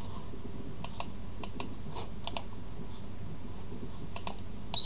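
Computer mouse button clicking: a series of short sharp clicks, several in quick pairs, with a louder click near the end.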